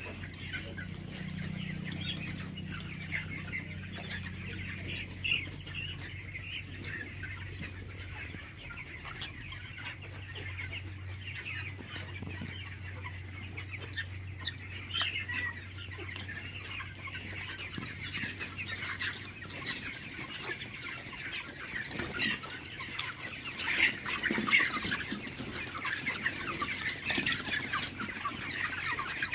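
A flock of desi chickens clucking and calling continuously, with many short overlapping calls. A low steady hum underlies the first two-thirds and then fades out.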